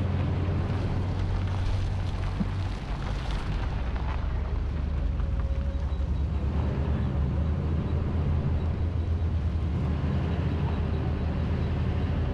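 Steady low rumble of a vehicle driving slowly on a rough road, engine drone mixed with road and wind noise. The engine note steps a little lower about three seconds in.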